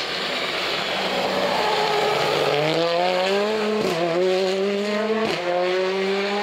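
Rally car sliding through a dusty bend, tyres scrubbing, then accelerating hard out of it: the engine climbs in pitch and is cut by two quick upshifts about a second and a half apart, each with a short crack.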